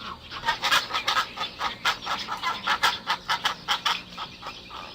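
Pelicans calling: a dense run of short, repeated calls, several a second.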